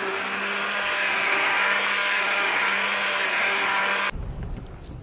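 Electric immersion blender running in a steel pot of tomato sauce, a steady whirring whine. It stops abruptly about four seconds in, leaving a quieter low rumble.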